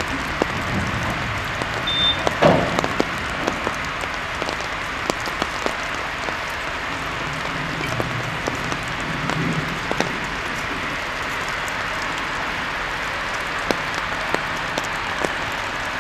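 Steady rain falling, with many scattered ticks of drops landing. A faint low rumble swells briefly about halfway through.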